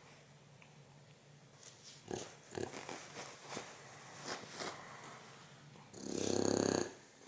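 A dog snoring: one long, pulsing snore near the end, with soft rustles and clicks in between.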